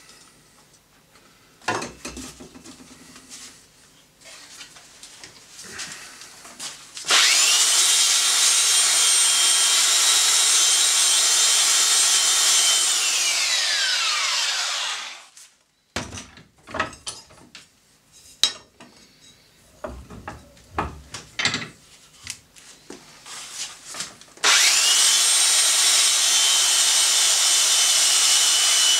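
Clicks and knocks of handling, then an electric sharpening machine switched on, running with a steady whine for about six seconds, then winding down, its pitch falling, after it is switched off. After more knocks it starts again near the end.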